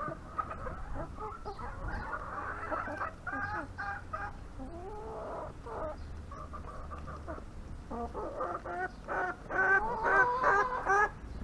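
Backyard hens clucking, with short repeated calls throughout that grow into a louder, faster run near the end.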